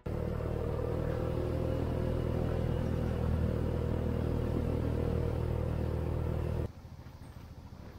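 A vehicle engine running at a steady speed, a constant low drone. It cuts off abruptly about two-thirds of the way in, leaving only faint background noise.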